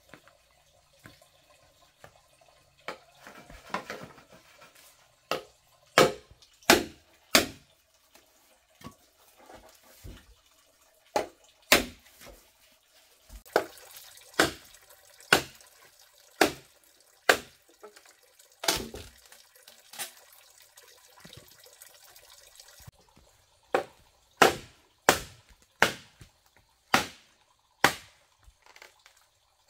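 Machete chopping into green bamboo poles: a series of sharp strikes, coming in runs of several blows a little under a second apart, with short pauses between the runs.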